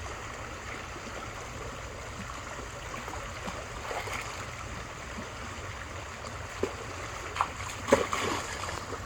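Creek water running steadily, with a few short sharp sounds near the end, the loudest about eight seconds in.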